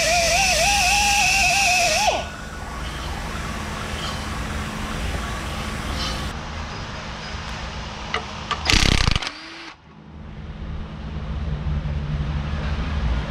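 Air drill turning a reamer through a bolt hole in a steel loader bracket. Its whine wavers in pitch under load over a hiss of exhaust air, then stops about two seconds in. A steady low shop hum follows, broken by one short loud burst near nine seconds.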